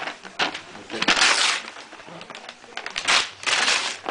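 Gift wrapping paper rustling and tearing as it is pulled open, in noisy crackling bursts, loudest about a second in and again around three seconds in.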